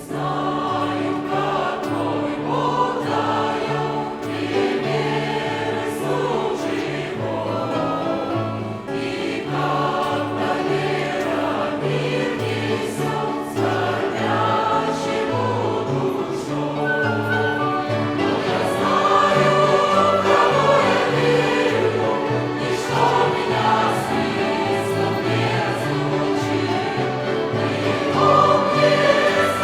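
Church choir singing a Russian hymn, accompanied by a violin ensemble, with sustained chords over a stepping bass line.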